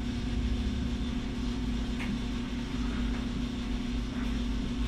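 Steady mechanical hum with a low drone and a constant tone, and one faint click about two seconds in.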